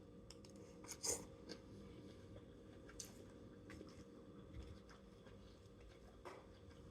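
Quiet eating sounds: soft chewing and small taps, with one sharper click about a second in.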